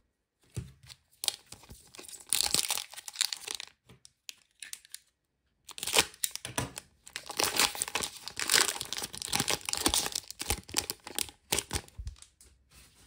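Glossy foil wrapper of a Footy Stars 2024 trading card pack being torn open and crinkled by hand, in several bursts of tearing and rustling with short pauses between them.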